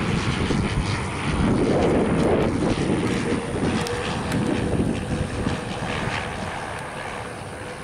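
Cessna 402C's twin piston engines and propellers on a landing pass. The sound is loudest a couple of seconds in, then fades as the plane moves away down the runway.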